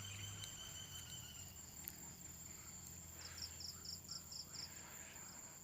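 Faint insect chorus: a steady high-pitched trill, with a short run of about six quick chirps a little past three seconds in.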